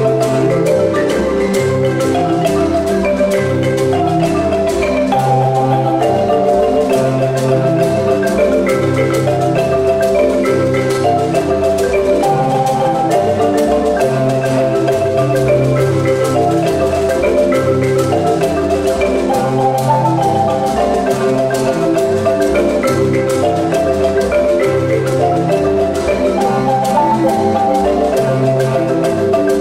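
An ensemble of wooden marimbas struck with mallets, playing dense interlocking patterns of repeated notes over a recurring low bass line without a break.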